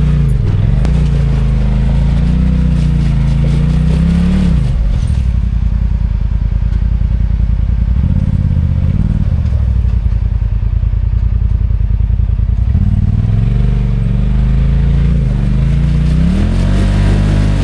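Side-by-side UTV engine running under load as it crawls over trail terrain, its pitch rising and falling with the throttle in the first few seconds and again near the end, steadier in between.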